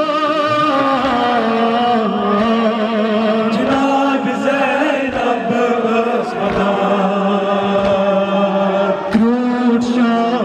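Voices chanting a Kashmiri noha, a Muharram lament, in long held notes that waver in pitch.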